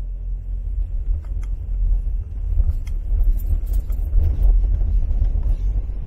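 Car driving, heard from inside the cabin: a steady low road and engine rumble, with a few light ticks and rattles.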